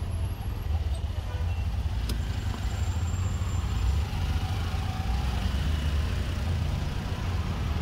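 Steady low rumble of a car on the move, the road and engine noise of a drive.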